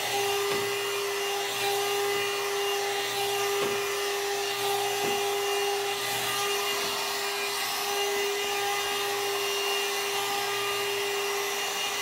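One-step hair dryer brush running on its low setting: a steady motor whine with a hiss of blown air.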